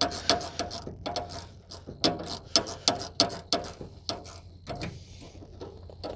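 Ratchet wrench clicking in short, irregular runs as a radiator hose clamp is tightened, over a steady low hum.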